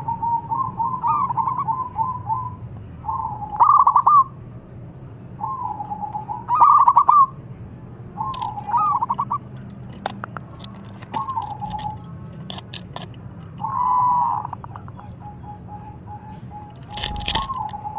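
Zebra dove (perkutut) cooing: a repeated short phrase of quick, bubbling coos that rises and falls, one every two to three seconds. A few sharp clicks come between the phrases, and a short thump comes near the end.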